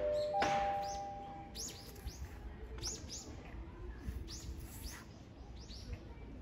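Small birds chirping: short, high chirps that sweep downward, often in quick pairs, repeated every second or so. In the first two seconds the last notes of a rising chime ring out and fade.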